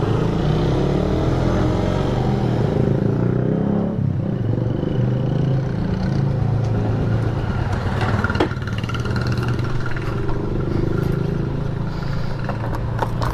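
Motorcycle engine running steadily under road and wind noise, with a few sharp clicks about two-thirds of the way in and near the end.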